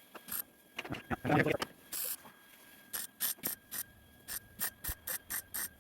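A run of short, sharp mechanical clicks and taps, sparse at first and then coming a few a second in the second half, over a faint steady high whine.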